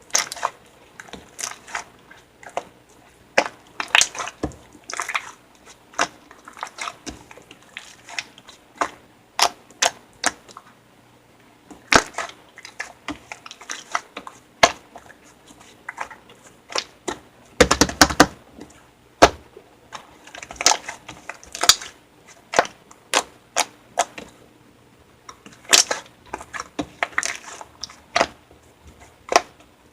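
Slime being squished and pressed by hand, giving irregular sharp clicks and pops, with a denser crackling run about two-thirds of the way through.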